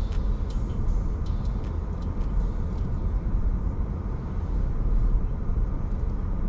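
Steady low rumble of a car's engine and road noise heard from inside the cabin, with a few faint, irregular light clicks.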